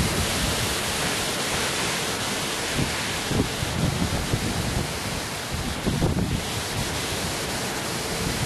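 Hurricane-force wind roaring steadily through the yard, with a few gusts buffeting the microphone as low rumbles around the middle and about six seconds in.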